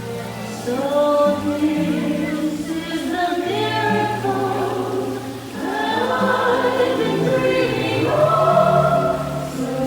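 Choir singing the show's soundtrack music, with held chords that change every second or two.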